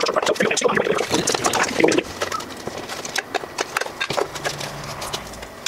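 Thin sheet-steel forge-kit panels being handled, bent with pliers and set down on a wooden plank: scattered sharp clicks and light taps of metal on wood.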